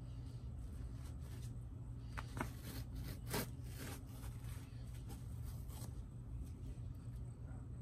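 Rustling and scraping of a fabric upholstery cover being pulled off a foam cushion over crinkly plastic sheeting, with a few sharp rasps in the middle, the loudest about three and a half seconds in. A low steady hum runs underneath.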